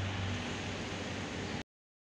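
Steady outdoor background noise: a hiss with a low hum beneath it. About a second and a half in it cuts off to dead silence.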